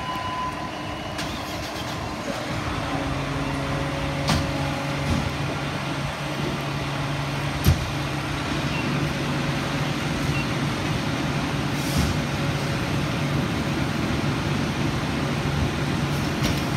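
Fire apparatus engine idling steadily in the station bay, a low constant hum, with a few sharp knocks at intervals.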